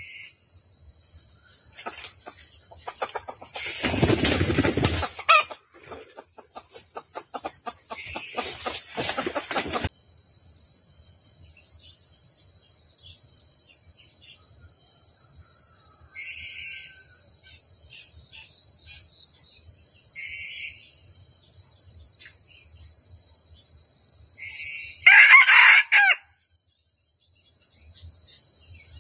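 Red junglefowl rooster crowing once, a short shrill call about a second long near the end, over a steady high whine. Earlier there are two stretches of rustling noise and a few faint short calls.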